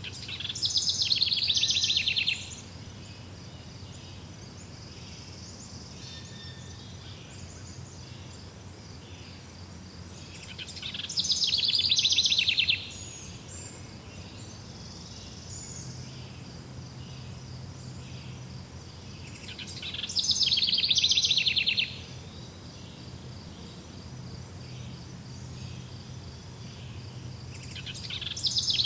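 An animal's loud, rapidly pulsed trill, about two seconds long, repeated three times roughly nine to ten seconds apart, with a fourth starting near the end. Under it runs a faint steady high whine with scattered faint chirps.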